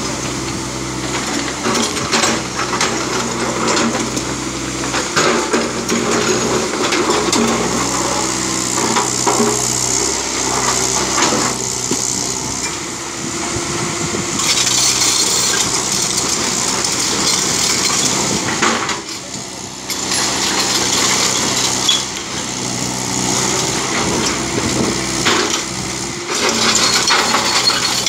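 JCB tracked excavator's diesel engine running steadily under load while its bucket digs and scrapes through loose quarry rock, with rocks knocking and clattering throughout.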